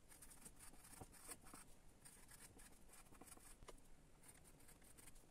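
Faint scratching of a graphite pencil writing on paper, in short irregular strokes.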